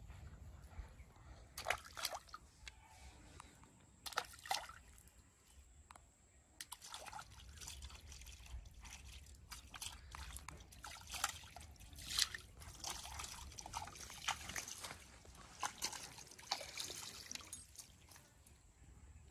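Small, irregular splashes, drips and trickles of water as hands dip and work in the shallow water at the bank's edge.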